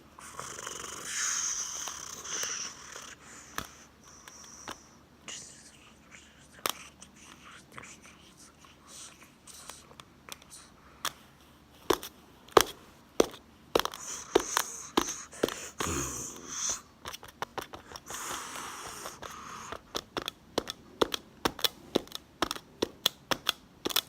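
Home-made horse sound effects by a person, in a small room. There are breathy blowing and snorting bursts, then a run of sharp clicks in the manner of hoofbeats that quickens toward the end.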